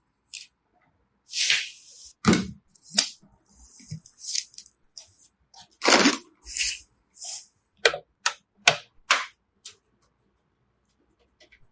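Computer parts being handled and fitted during a PC assembly: a run of sharp plastic-and-metal clicks and snaps with short rustles. Two heavier knocks come at about two seconds in and about six seconds in, and a quick series of crisp clicks follows near the end.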